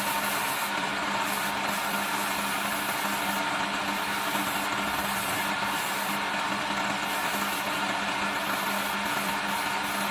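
Electric wood lathe running steadily, a constant motor hum under the hiss of sandpaper held against the spinning turned wooden spindle.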